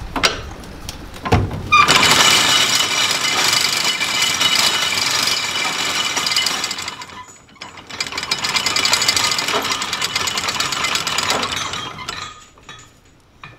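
Anchor chain rattling out over the bow windlass's gypsy as the anchor is dropped, let out under the hand-wheel brake. It runs for about five seconds, checks briefly, then runs again for about four seconds before stopping.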